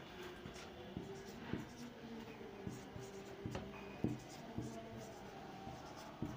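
Marker pen writing on a whiteboard: a dry scratching with irregular light taps as each letter is put down.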